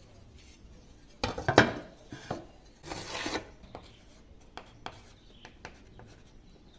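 Something hard scraped or rubbed across a surface in two bursts, a little over a second in and about three seconds in, followed by a scatter of light clicks and taps.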